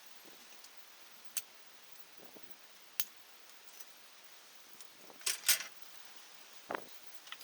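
Metal tools and engine parts clinking as they are handled, a few separate sharp clinks with the loudest pair about five seconds in, over a faint steady hiss.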